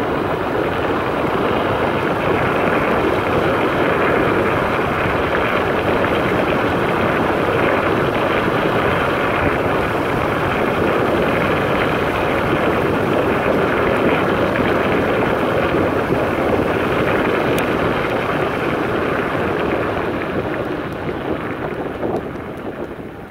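Steady rush of wind over the microphone, as when riding along at speed, easing off near the end.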